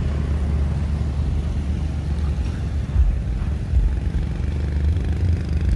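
Small motorcycles riding past on a road, with a steady low rumble.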